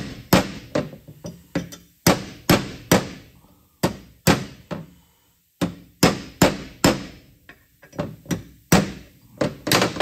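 Hammer tapping a punch to drive a new crankshaft oil seal into an aluminium engine sump cover: a string of sharp taps, about two a second, with a brief pause around the middle.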